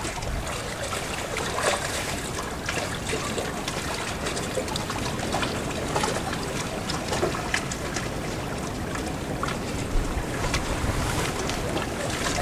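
Wind on the microphone and lapping lake water: a steady rushing noise with small crackles, and a low wind rumble that builds near the end.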